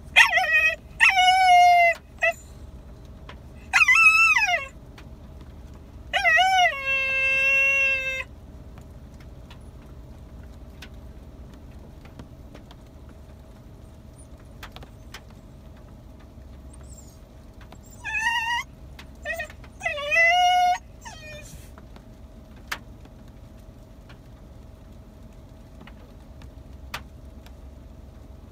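Hokkaido dogs whining and yelping in high, wavering calls, close by. There are several short bursts and one long drawn-out whine in the first eight seconds, then another cluster of whines a little past the middle.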